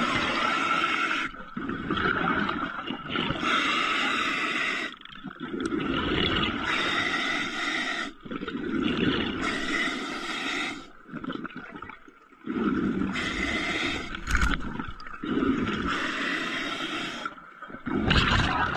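A diver breathing underwater through a regulator fed by a surface compressor. The breaths come rhythmically, a loud rush of air every two to three seconds with short pauses between.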